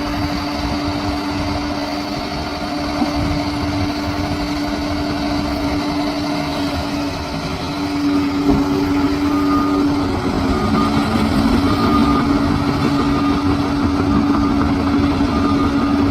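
Bulldozer's diesel engine running under load as a steady drone, growing louder about halfway through.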